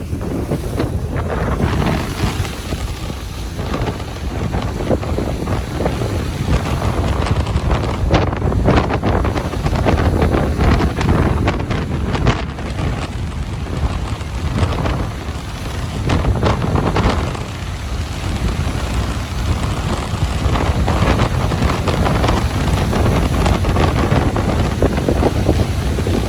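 Ocean surf washing onto a beach, with strong wind buffeting the microphone.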